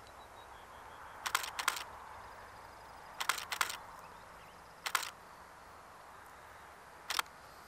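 Nikon D850 DSLR shutter firing six times: two quick pairs of frames, then two single frames.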